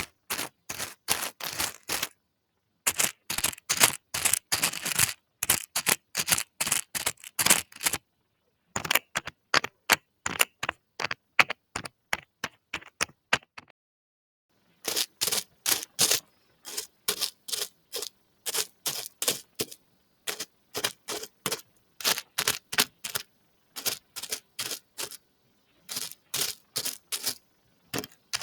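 Small hard plastic trinkets clicking and clattering as they are handled: quick runs of sharp clicks broken by three short pauses.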